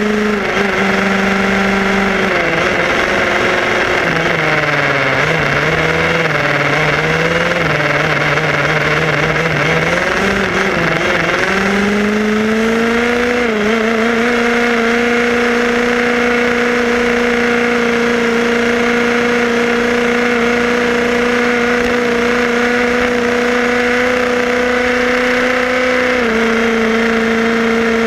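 HPI Baja 5B SS RC buggy's small two-stroke petrol engine running under throttle, with wind and road noise. A couple of seconds in its pitch drops and wavers for several seconds, then climbs about twelve seconds in and holds steady at higher revs, easing slightly near the end.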